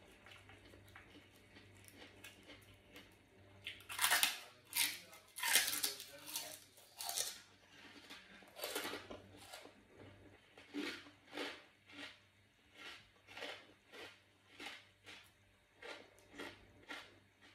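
Close-up eating sounds of crunchy food: a few loud crunches about four seconds in, then steady chewing at about two bites a second.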